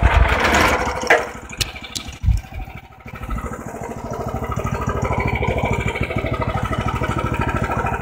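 Wood-Mizer bandsaw mill running with its band blade sawing through a large white pine timber, roughing out a tenon. The sound comes in suddenly with a few sharp knocks in the first couple of seconds, then builds into a steady, rapidly pulsing engine run.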